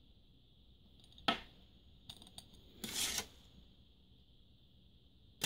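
Quiet handling sounds: a sharp tap about a second in, a few faint clicks, a short rustle about three seconds in, and another tap near the end. These are small objects being handled and set down on a wooden tabletop, over a faint steady hiss.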